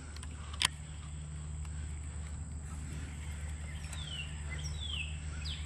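Bird calls near the end, a few quick falling whistles, over a steady low hum, with a single sharp click about half a second in.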